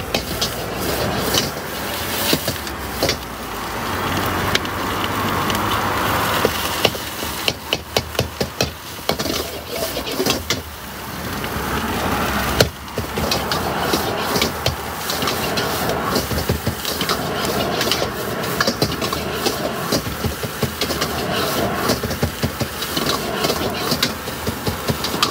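Cooking clatter: a metal spatula knocking and scraping against a wok in quick runs of sharp strikes, over a steady background noise, as egg fried rice is stir-fried.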